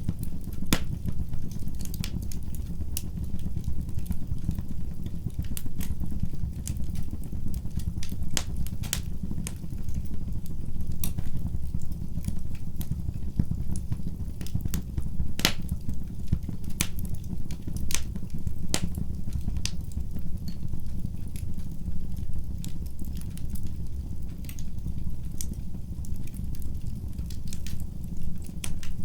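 Wood fire burning in a fireplace: a steady low rumble of the flames with frequent irregular crackles and pops from the burning wood.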